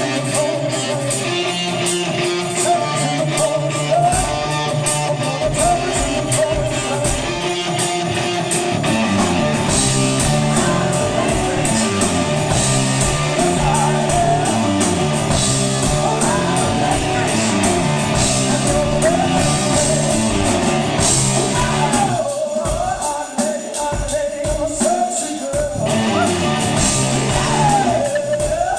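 Rock band playing live: a singer over electric guitar, bass and drums. For a few seconds near the end the drums and bass drop back, leaving the voice and guitar.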